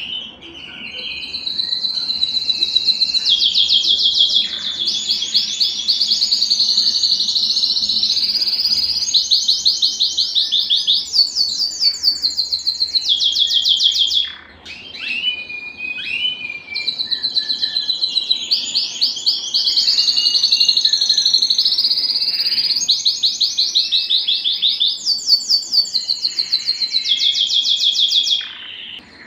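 Male domestic canary singing long, fast-trilled song phrases. About halfway through it drops for a couple of seconds to softer scattered twitters, then resumes the full song.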